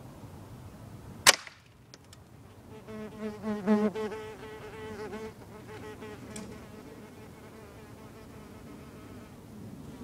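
A single sharp shot cracks about a second in, then a fly buzzes close by for a few seconds, its drone wavering in pitch.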